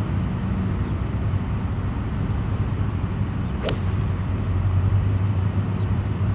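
A 9-iron striking a golf ball on a full approach swing: one sharp click a little over halfway through. Under it runs a steady low hum.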